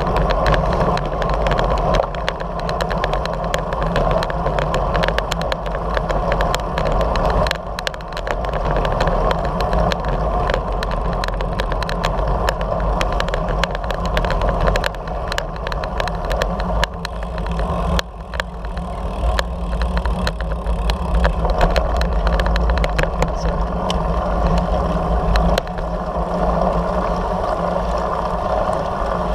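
Steady wind rush on the microphone of a camera riding on a moving road bike, with tyre noise from the asphalt and frequent short crackles from buffeting and road texture.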